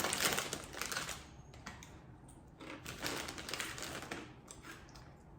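Crunchy spicy corn chips being chewed: a run of dry, irregular crunches, loudest at the start.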